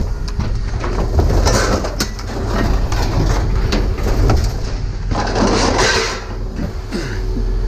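Scrap-yard noise: a steady low engine rumble from heavy machinery, with irregular clattering and scraping of scrap metal.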